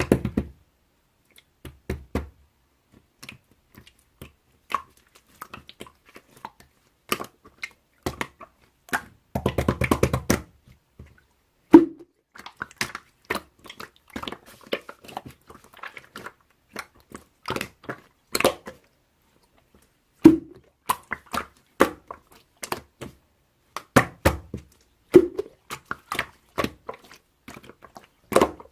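Slime being worked by hand, pressed, folded and stretched, giving an irregular stream of sticky clicks and small air pops, a few of them noticeably louder, with a dense crackling patch about a third of the way through.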